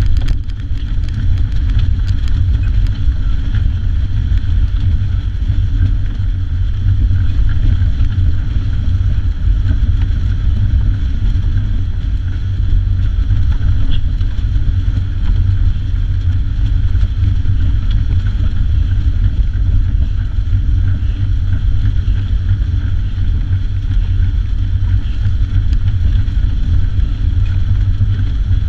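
Steady rumble of rushing air and the pedal drive inside the cockpit of a human-powered aircraft as the pilot pedals, with a steady higher whine over it.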